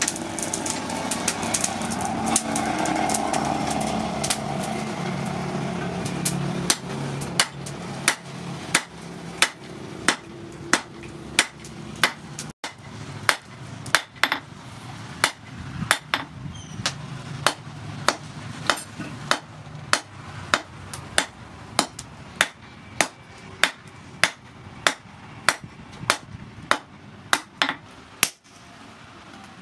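Hand hammer striking red-hot rebar on an anvil in a steady rhythm, about one and a half blows a second, each a sharp metallic clank. A steady rushing noise runs under the blows for the first several seconds.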